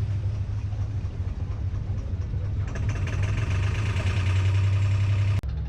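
Tour boat's engine running with a steady low hum, growing louder and fuller about three seconds in, then cutting off abruptly near the end.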